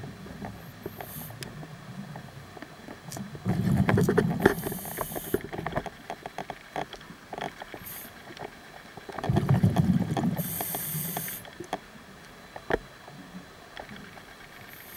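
Scuba diver breathing through a regulator underwater: two bursts of exhaled bubbles, about four and about nine and a half seconds in, each with a short sharp hiss from the regulator. Scattered small clicks sound between the breaths.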